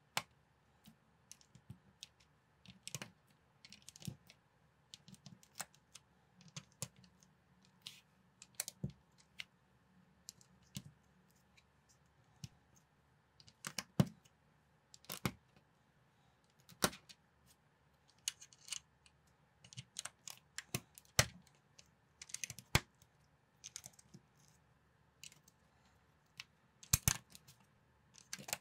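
Plastic toy building bricks being pressed and snapped together by hand: irregular sharp clicks and small clatters, with a few louder snaps.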